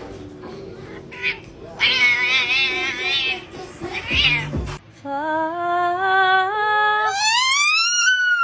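A cat yowling in drawn-out, wavering calls, then one long call that climbs in pitch in steps for about three seconds and dips at the end.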